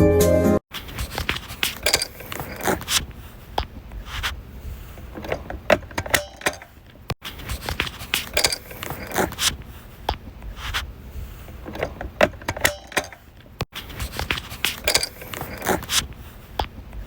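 Irregular clicking and rattling of small hard objects being handled, over a low rumble, with two brief breaks.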